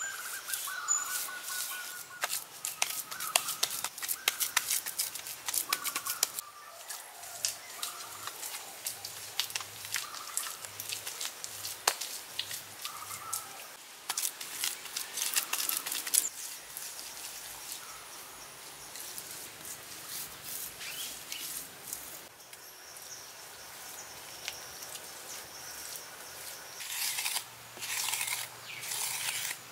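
Hands working craft materials in a build: a busy run of irregular crisp clicks, snips and rustles, with a few faint short chirp-like tones in the first half.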